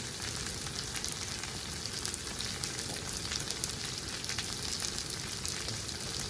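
Food frying in hot fat, sizzling steadily with small crackles and pops.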